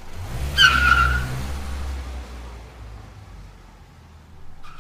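Car pulling away: a short tyre squeal about half a second in over a low engine rumble that then fades out.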